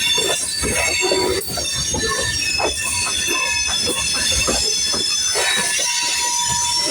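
Freight cars of a long manifest train rolling past, their wheels squealing on the rail in several high, steady tones, with irregular knocks and clatter from the wheels running over the track.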